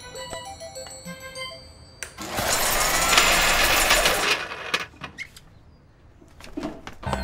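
Kitchen blender running with several things inside it, a loud whirring noise about two seconds long that starts suddenly and stops, after a light tinkling music cue; a few sharp clicks follow.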